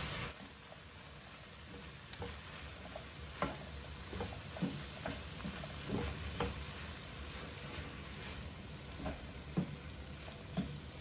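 Diced bell peppers and minced meat frying in a pan while a wooden spoon stirs them, with irregular scrapes and taps of the spoon against the pan over a soft steady sizzle.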